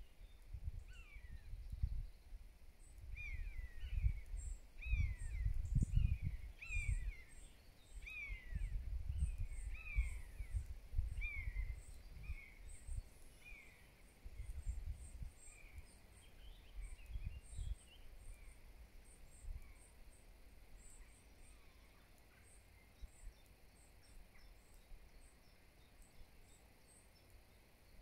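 A bird repeating a short downward-sliding call about once a second, fading out after the first half. Faint, very high chirps run throughout, and gusts of wind buffet the microphone, loudest in the first half.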